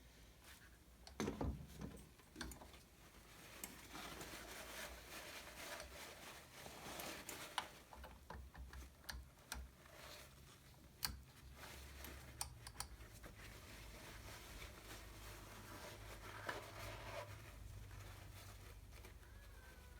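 Scattered light clicks and taps of hands and tools working the cylinder off a Suzuki RM125 two-stroke engine, with a few louder knocks, the first about a second in, over a low steady hum.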